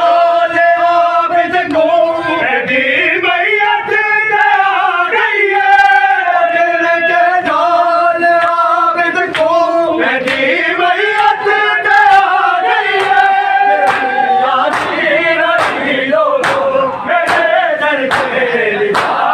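A crowd of men chanting a noha (Shia lament) together in unison, repeating its refrain. In the last few seconds the sharp slaps of matam, hands beating on bare chests, join in at a steady beat.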